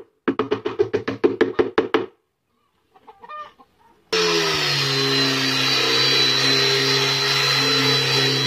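A quick, even run of knocks, about seven a second, lasting about two seconds. Then, about four seconds in, an electric power tool's motor starts abruptly and runs steadily with a high whine.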